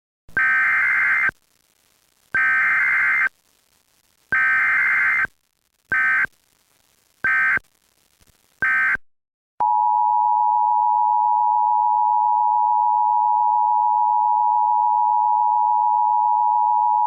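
Emergency Alert System tones: three roughly one-second bursts of digital SAME header data, then three shorter data bursts. A little past halfway these give way to the steady two-tone EAS attention signal, which holds unbroken.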